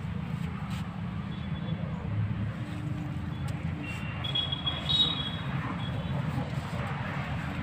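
Steady low rumble of road traffic, with a brief faint high-pitched tone about four to five seconds in.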